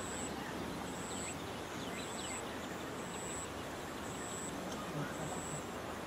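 Steady outdoor background noise with a few faint chirps, and a short, very high-pitched tone that repeats about once a second.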